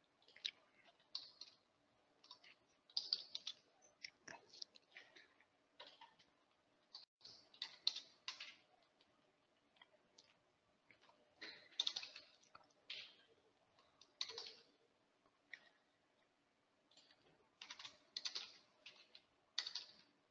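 Faint computer keyboard typing and mouse clicks in irregular bursts of short taps, with pauses of a second or two between them.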